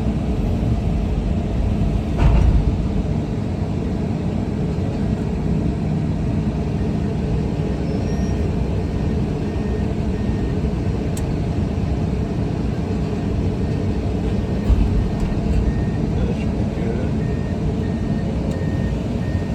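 Komatsu 210 excavator's diesel engine running steadily, with a heavy thump about two seconds in and another about three-quarters through. A faint high beep repeats about twice a second near the end.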